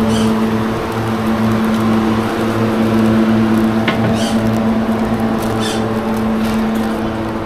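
A machine running with a steady, even hum and a regular low throb beneath it, with a few light clicks.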